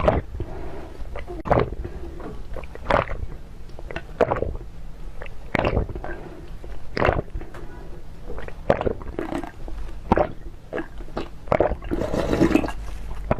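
Close-miked eating sounds: wet chewing, sucking and smacking in irregular strokes, with a longer, hissier slurp near the end.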